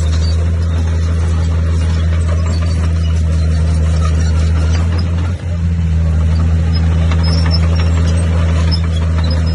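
Bulldozer's diesel engine running under a steady, low drone, with a brief dip about halfway through.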